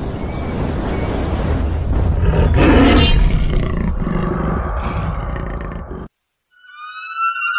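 Title-card sound effect: a loud, deep rumbling noise that swells about three seconds in and cuts off suddenly about six seconds in. A rising tone with several overtones follows near the end.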